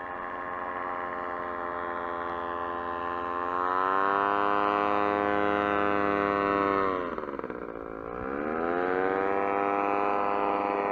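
An engine running. Its pitch rises about three to four seconds in, drops sharply for about a second around the seventh second, then picks up again and holds steady.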